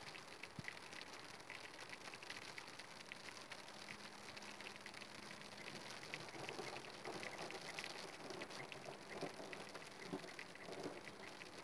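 Steady rain falling, with many separate drops heard as light ticks close to the microphone.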